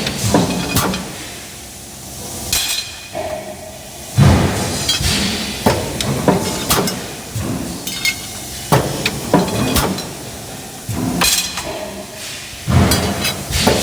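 Factory machinery working steel, with irregular metal clanks and knocks repeating every second or so, some ringing briefly.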